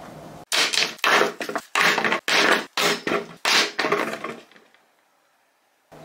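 Scrubbing strokes on a hiking shoe, close to the microphone: about seven rough, loud strokes roughly half a second apart, then a trailing off into near silence.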